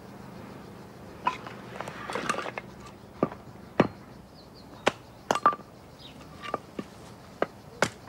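Irregular sharp knocks and clinks of flat stone slabs being worked by hand, about a dozen in all, starting about a second in, some with a brief ring.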